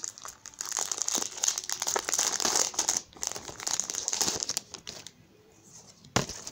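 Crinkling of a Pokémon booster pack's foil wrapper as it is opened and crumpled in the hands, dense for about five seconds, then dying away; a single sharp tap near the end.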